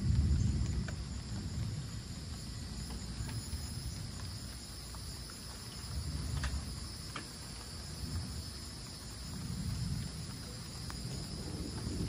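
Distant thunder rumbling low, swelling and fading several times, under a steady high chorus of insects. A few faint ticks are scattered through it.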